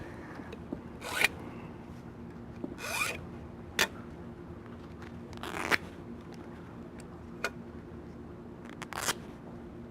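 A tool scraping and cutting at vinyl cover material in a durability test: about four short scraping strokes spaced a couple of seconds apart, with a couple of sharp clicks between them.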